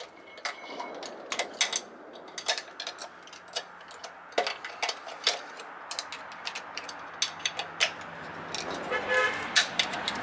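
Steel screwdriver tips clicking and scraping against a snap ring on a transmission output shaft as it is pried out of its groove, in irregular sharp ticks. A brief squeak comes about nine seconds in, and a steady background noise swells near the end.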